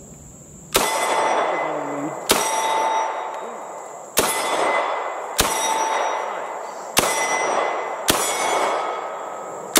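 Seven single shots from a 9mm Uzi Pro pistol, fired slowly one at a time, each shot followed by a long ringing tail.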